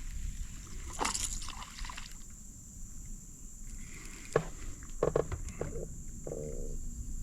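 Frogs calling from the bayou: several short, grunting, pulsed croaks in the second half. A brief slosh of water about a second in.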